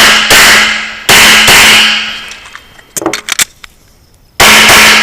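Pistol shots fired in quick pairs: two at the very start, two more about a second in, and a single shot near the end. Each shot is loud and rings out briefly. A few light clicks and rattles come around three seconds in.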